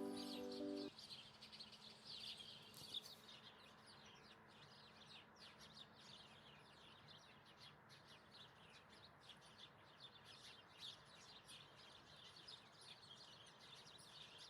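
Piano music stops about a second in, leaving faint birdsong: many small birds chirping over a soft hiss of background noise.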